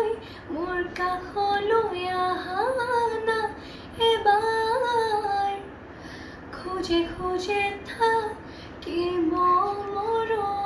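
A girl singing an Assamese song solo, without accompaniment: a slow melody of held notes that glide between pitches, broken by short pauses for breath.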